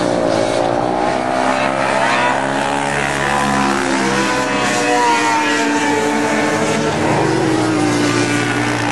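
Racing quad's engine revving, its pitch rising and falling over and over as the throttle is worked around the dirt oval.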